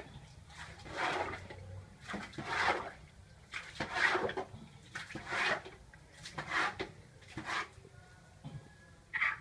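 Domestic goose breathing noisily with breathy hisses, about one every second or so, in a steady rhythm.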